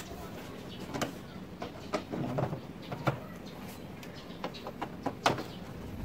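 Screwdriver backing screws out of a washing machine's plastic control-panel cover, with scattered light clicks and scrapes of the plastic as it is handled. One sharper click comes about five seconds in.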